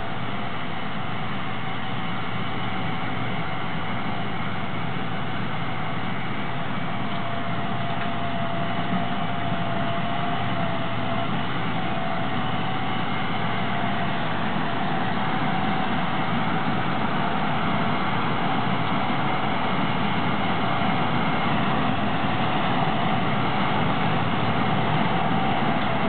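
Gleaner R62 combine harvesting soybeans: a steady engine and machinery drone with a held whine, slowly growing louder as the combine approaches.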